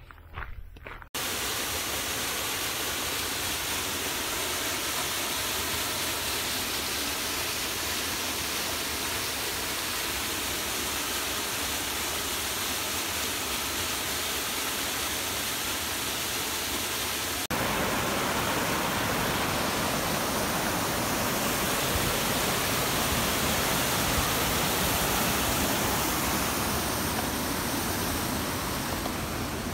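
Waterfall: a steady rush of falling water. About halfway through it jumps to a louder, fuller rush.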